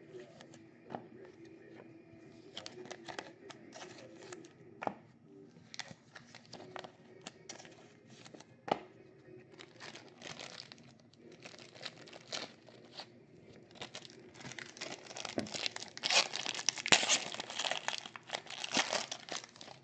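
A trading-card pack wrapper being torn open and crinkled by hand, a scatter of sharp crackles and rustles that grow denser and louder over the last few seconds.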